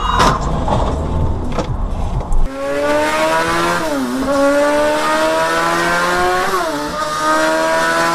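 Low road rumble with two sharp knocks, then an engine accelerating hard: its pitch climbs steadily, drops sharply at a gear change about four seconds in and again near the end, and climbs again after each shift.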